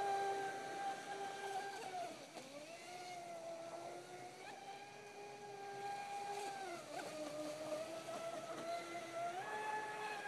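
Traxxas Spartan RC speedboat running on the water, its electric motor giving a steady high whine. The pitch drops twice, about two seconds in and again near seven seconds as the boat slows, and climbs back up near the end.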